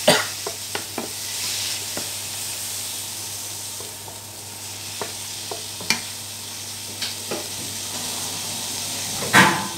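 Mustard greens stir-frying in a nonstick wok: a steady sizzle with scattered taps and scrapes of a wooden spatula against the pan, and a louder knock near the end.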